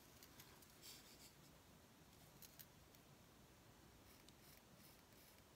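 Faint scratching of a pencil drawing on a painted gourd, in a few short strokes.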